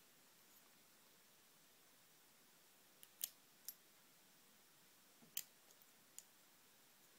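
A few faint, sharp metallic clicks as a key is pushed into a cutaway Ingersoll 10-lever padlock, lifting its levers. The clicks come in two small groups, about three seconds in and again about five and a half seconds in, with near silence between.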